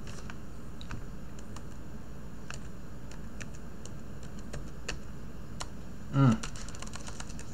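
Computer keyboard keystrokes, sparse and irregular, as a password is typed at a terminal prompt. Near the end a man makes one short vocal sound.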